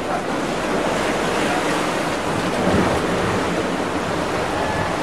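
Steady rushing noise of sea water and wind on the microphone.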